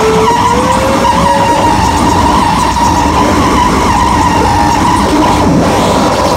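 Harsh electronic noise from JMT Synth analogue synthesizers played live: a loud, dense wall of noise with a steady high tone over it, and a lower tone gliding slowly upward in the first couple of seconds.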